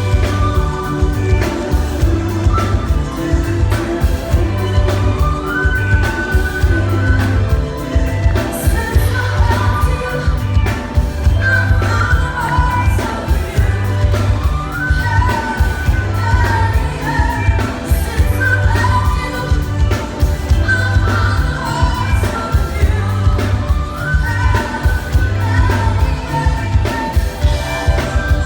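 Live band playing a pop dance track with a steady pulsing bass beat, and a woman singing over it.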